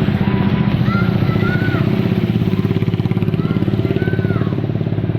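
A vehicle engine running steadily close by, with a fast, even throb. Thin rising-and-falling tones are heard faintly above it about three times.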